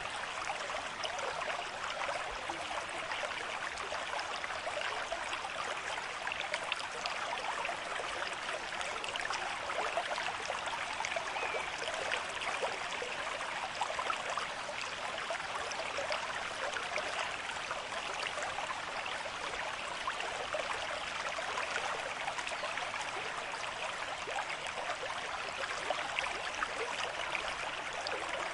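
River stream at moderate flow: a steady rush of running water with constant fine splashing.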